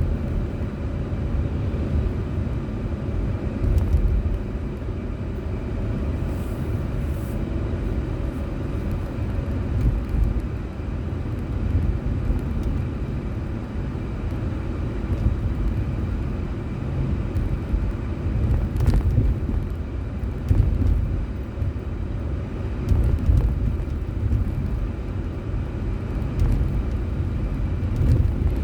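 Steady low rumble of a car being driven, engine and tyre noise heard from inside the cabin, swelling a little now and then, with a few faint clicks.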